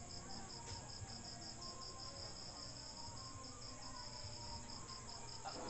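A cricket chirping faintly in a steady, evenly pulsed high trill, about five chirps a second.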